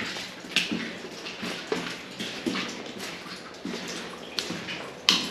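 Footsteps splashing through shallow water on a tunnel floor at walking pace, about one step every three-quarters of a second.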